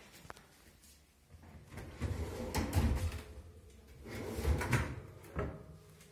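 A kitchen cabinet drawer fitted with a steel wire basket being pulled out and pushed back on its runners, sliding twice with low thuds, then a sharp knock as it closes.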